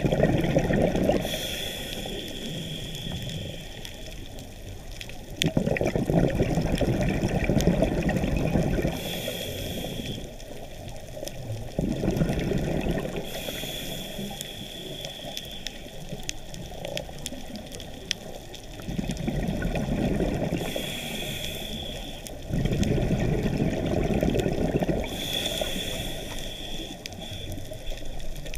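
Scuba diver breathing through a regulator, heard underwater through the camera housing: each inhale is a hiss with a faint high whistle, each exhale a low bubbling rush, about five breaths in a slow, even rhythm.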